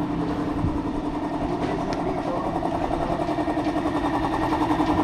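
A vehicle engine idling steadily with an even, pulsing beat, getting a little louder near the end.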